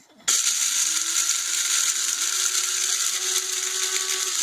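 Electric blade coffee grinder switched on and grinding whole black peppercorns: the motor starts about a third of a second in, its whine rising slightly as it comes up to speed, then runs steadily with a bright whirr of the peppercorns being chopped.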